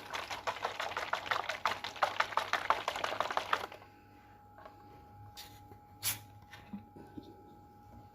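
Rapid light tapping of a pestle and spoon in a mortar, pounding and tossing the shrimp salad with its fish sauce, several strokes a second. It stops about three and a half seconds in, leaving a few scattered clicks.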